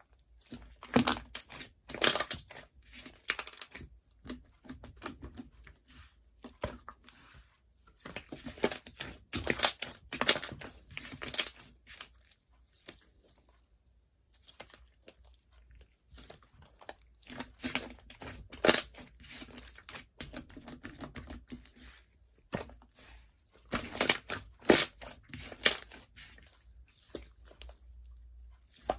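Slime being pressed and stretched by hand, crackling and popping with quick runs of small clicks. It comes in four spells with quieter pauses between them.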